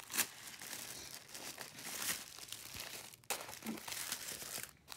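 Tissue paper crinkling and rustling as the sheets are unfolded by hand, in a quick run of crackles with a brief pause a little after three seconds in.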